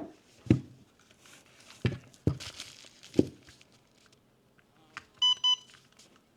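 LiPo battery packs handled and set down with several knocks amid rustling packaging, then a LiPo cell voltage checker gives two short, high beeps near the end.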